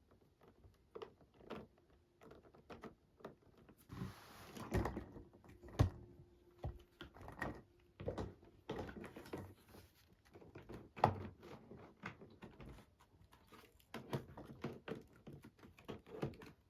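Quiet household handling sounds: an irregular run of small knocks, taps and clicks as objects are set down and moved, with a short rustling rush about four seconds in.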